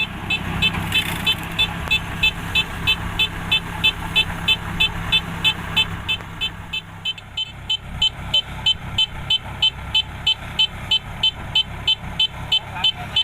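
Kubota DC-70 Plus combine harvester's electronic warning beeper sounding over and over, about two and a half short high beeps a second, over the harvester's diesel engine running steadily. The engine's low drone changes about seven seconds in.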